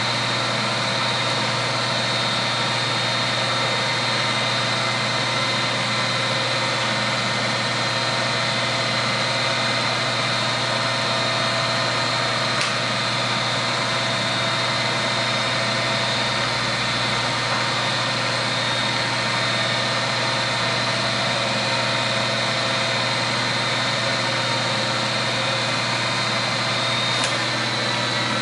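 Bridgeport vertical mill's 1 HP three-phase motor and spindle running steadily with no cut: a constant hum with a high whine. A light click about halfway through and another near the end.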